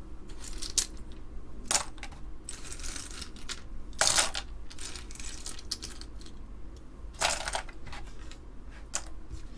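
Small keyboard parts, keycaps and springs, clicking and clattering as they are handled and dropped into a small container: scattered separate rattles, the loudest about four seconds in and again about seven seconds in.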